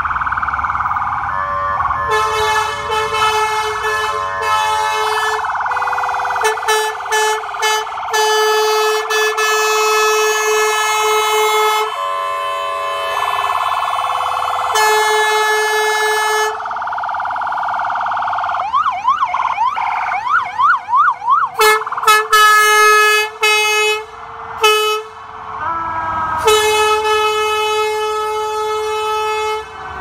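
Emergency sirens from an FDNY fire engine and ambulance responding, sounding steadily throughout. Air horn blasts come again and again over the sirens, some held for several seconds and some short and in quick succession. Just past the middle the siren switches briefly to a fast up-and-down yelp.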